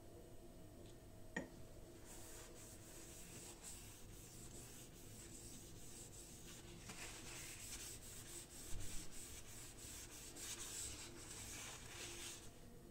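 Paper towel rubbing over an octagonal wooden knife handle in many quick wiping strokes, wiping it down during impregnation. There is a single light click just over a second in.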